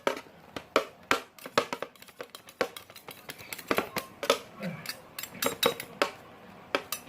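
Irregular sharp clicks and light clinks of small hard objects being handled, a couple to a few each second.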